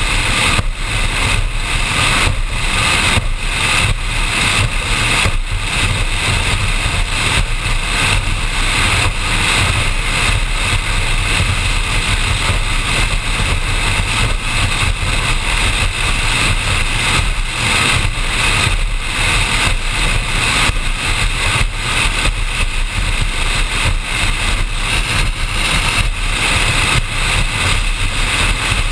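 Performance powerboat running steadily at speed: a loud, constant engine drone mixed with a rush of wind and water noise.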